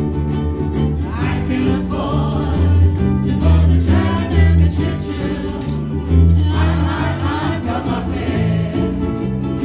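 A ukulele group playing and singing together: many voices over a steady strum of ukuleles, with a bass line underneath.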